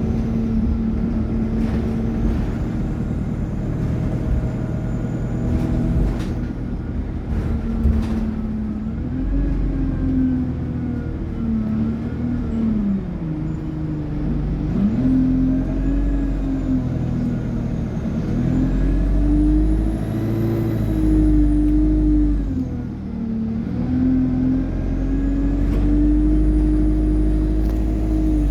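ADL Enviro200 single-deck bus under way, its Allison automatic gearbox and engine whining in a pitch that rises and falls again and again as the bus pulls away and changes gear. A high turbocharger whine rises and falls about two-thirds through, and a few sharp knocks or rattles come in the first third.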